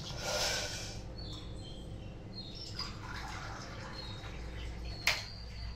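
Water poured and dripping into a pressure cooker of rice, with short high splashing and dripping sounds, then a sharp clink about five seconds in.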